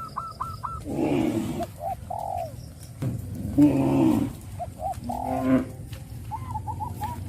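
Cattle mooing in several short calls, the loudest about three and a half seconds in, with shorter arching calls in between.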